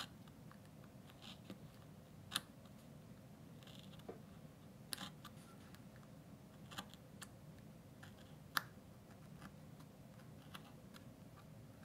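Hobby knife cutting and notching feather lines into a basswood bird wing: faint short scrapes and sharp little clicks, scattered every second or two.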